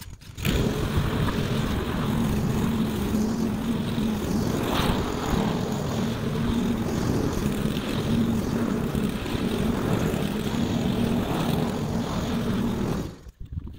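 Old petrol rotary push mower starting up about half a second in, then running at a steady speed while cutting grass. It cuts off shortly before the end.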